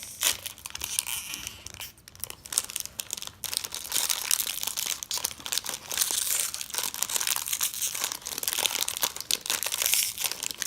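Packaging crinkling and tearing as a small wrapped toy accessory is unwrapped by hand, a continuous crackle of many small clicks.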